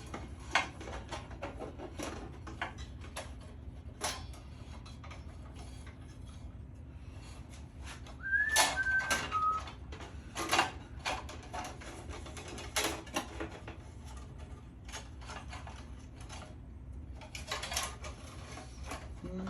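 Scattered metallic clicks, knocks and rattles of a band saw blade being handled and fitted onto the saw, over a low steady hum. About halfway through there is a brief high squeak that drops in pitch.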